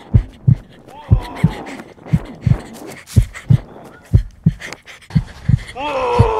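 A thudding heartbeat-like rhythm, low thumps in lub-dub pairs about once a second, with a faint cry about a second in and a loud, falling cry from a person near the end.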